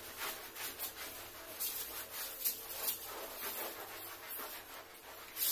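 Cloth wiping a plastered wall: a series of soft, irregular rubbing swishes, with a louder one near the end.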